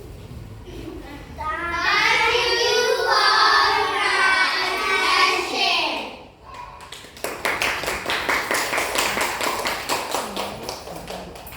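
A group of children's voices calling out together for about four seconds, followed a second later by a round of applause.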